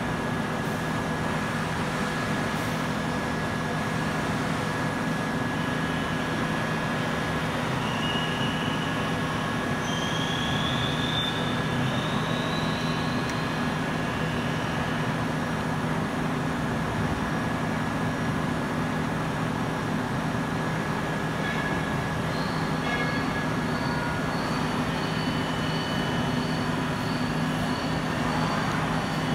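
Steady machinery noise with a constant low hum. High thin whines rise in pitch about eight to thirteen seconds in, and a high whine comes back about twenty-two seconds in.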